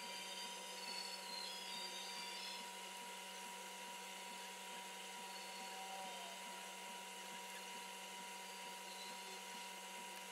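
Soldering iron with a dual basket weave stippling tip being pressed repeatedly into a polymer pistol grip: light, regular taps over a steady hum.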